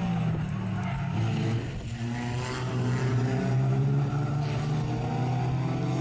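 Engines of several banger racing cars running together as they lap the track: a steady drone of overlapping engine notes that dips briefly about two seconds in.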